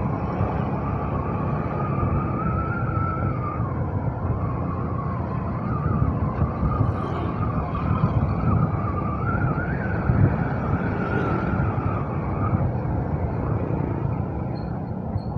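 Motorcycle on the move: steady engine and road-wind noise, with a whining tone that wavers up and down.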